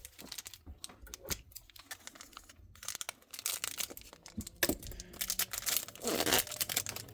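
Foil Pokémon booster pack wrapper crinkling and tearing, with trading cards being handled: a run of sharp rustles and clicks.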